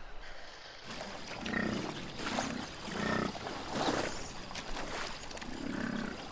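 Wild animals growling in a run of short, rough bursts, roughly one a second, starting about a second in.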